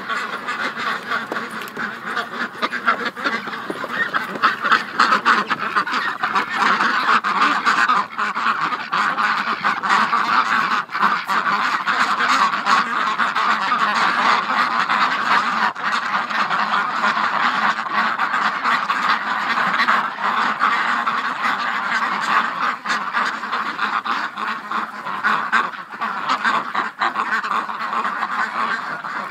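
A large mixed flock of domestic ducks quacking continuously, many calls overlapping into a dense, loud chatter, loudest a few seconds in.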